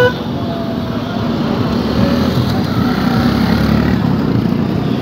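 Street traffic din: a steady rumble of passing vehicles and motorbikes with crowd noise, and a short horn toot right at the start.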